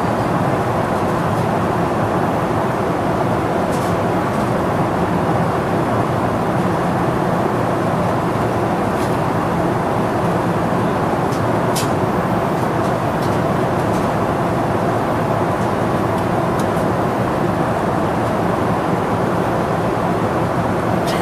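Steady cabin noise of a Boeing 777-300ER airliner in flight, the even rush and rumble of its engines and the airflow, with a few faint clicks.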